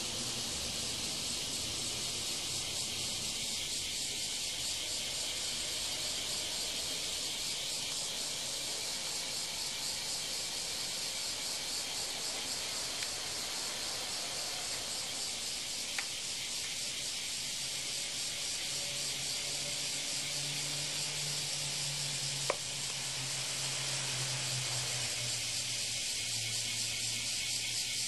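Steady high hiss, with two faint brief clicks in the second half.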